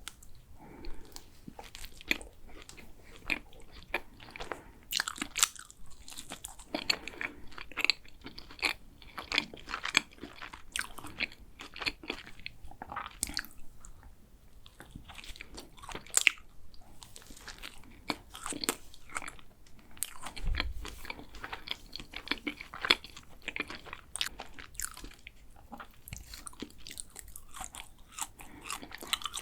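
Close-up bites and chewing of a flaky layered chocolate pastry, with crisp crackles of the pastry layers breaking over and over throughout.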